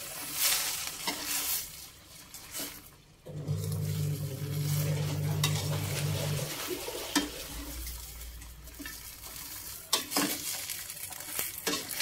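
Metal spoon stirring and tossing water spinach in a stainless steel wok, with irregular clinks of the spoon against the pan over the sizzle of the cooking sauce. A low steady hum joins for about three seconds in the middle.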